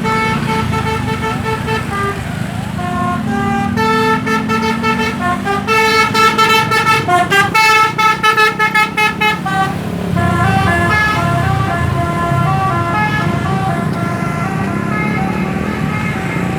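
Indonesian bus 'telolet' musical air horn (Basuri multi-tone horn) playing tunes of stepped notes, with a fast stuttering run of notes in the middle and another tune after it, over the low rumble of a bus engine.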